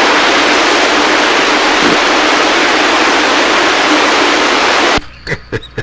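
CB radio receiver static: a loud, steady hiss that cuts off suddenly about five seconds in, followed by a few clicks.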